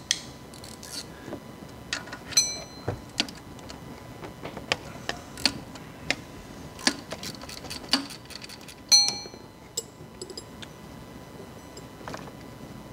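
Metal hand tools clinking and tapping as they are handled: irregular sharp clicks, a cluster of quick ticks around the middle, and two taps that ring briefly like a struck wrench, the second of them, near nine seconds in, the loudest.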